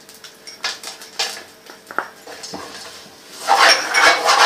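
Kitchen pan with melting butter and brown sugar being stirred with a spoon while peanuts are tipped in: a few short clinks and scrapes, then a louder stretch of rattling and scraping near the end.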